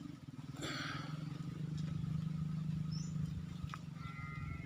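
Outdoor ambience: a steady low hum throughout, with a short rustle about half a second in and a few brief high chirps.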